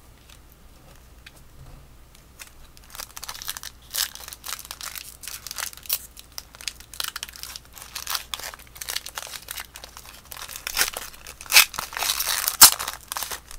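Plastic wrapper of a trading card pack being torn open and crumpled in the hands: quiet at first, then a long run of crackling and crinkling that is loudest near the end.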